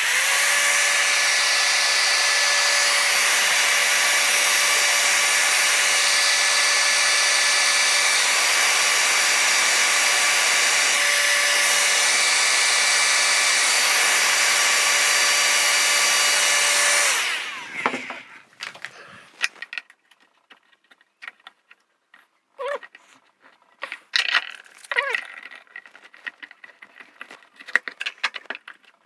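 A small electric power tool runs steadily for about 17 seconds with a steady whine over a rushing hiss, then stops and dies away. Light clicks and knocks of handling parts follow.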